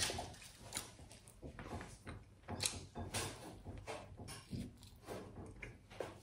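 Mukbang eating sounds: a piece of pizza torn apart and bitten, then chewed close to the microphone, with irregular wet clicks and crunches several times a second.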